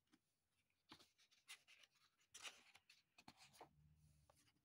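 Faint paper rustling as a sketchbook page is turned over: several short, crisp swishes and crackles of the sheet between about one and three and a half seconds in.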